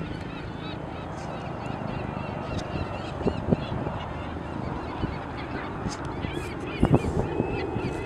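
A large flock of gulls, ring-billed and western gulls among them, calling continuously in many overlapping short cries. Wind rumbles on the microphone, with a few low thumps near the end.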